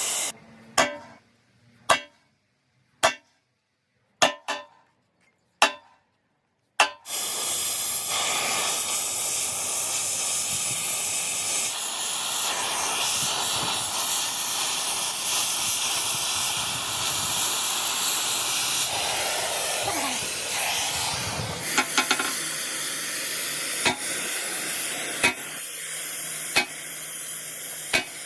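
Several short, sharp hits with silence between them, then a steady crackling hiss from about seven seconds in that is typical of arc welding on steel. A few scattered clicks follow near the end.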